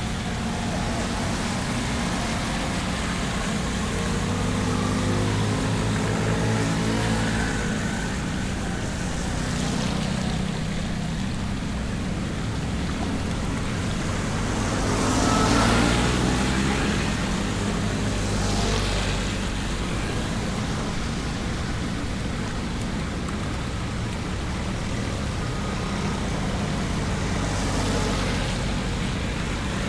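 Road traffic on a flooded street: a motor vehicle engine running steadily, with a louder rush of a vehicle passing about halfway through.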